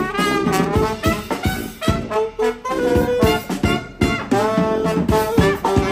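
Live brass band of saxophones, trombone and trumpet playing a jazzy tune, with a drum kit keeping a steady beat under held horn notes.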